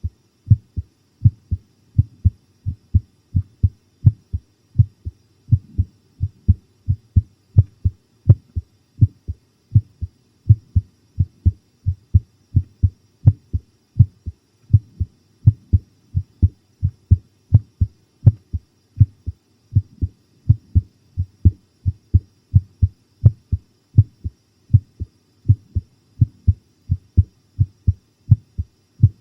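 A person's heartbeat heard up close at the chest: a steady rhythm of low, paired lub-dub thumps, about one beat a second, with no let-up.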